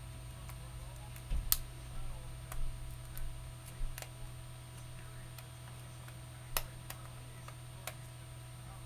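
Several small sharp clicks at irregular intervals as the plastic retaining clips of a Samsung Galaxy W's outer housing are pried loose one by one. A steady low hum runs underneath.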